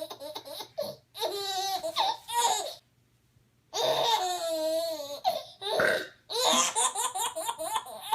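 People laughing hard in several bouts, with a short silent break about three seconds in.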